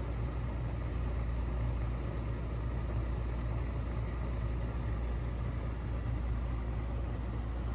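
Philips Avent electric bottle warmer heating the water around a bottle: a steady low hum with a faint hiss over it.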